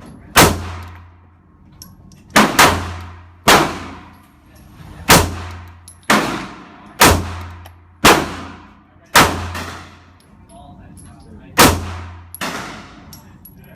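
S&W Bodyguard .380 pistol firing .380 ACP rounds, about a dozen shots at roughly one a second with a couple of quick doubles, each shot followed by a long echoing decay.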